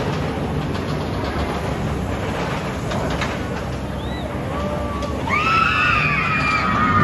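Steady rumble of the Oblivion vertical-drop roller coaster's car running along its track up to the drop, then, about five seconds in, several riders screaming together as the car hangs over the edge of the vertical drop.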